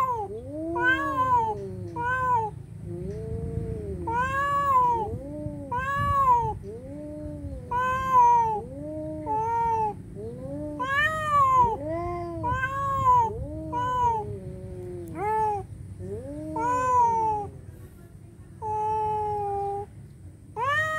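Two domestic cats yowling at each other in a territorial standoff. It is a string of drawn-out wails that rise and fall, about one a second, with a flat, held note near the end.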